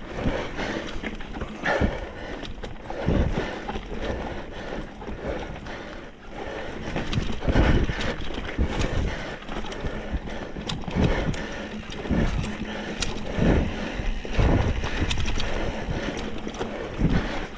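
Mountain bike jolting over a rocky, rooty trail: irregular thumps about once a second with clicks and rattles from the frame and drivetrain.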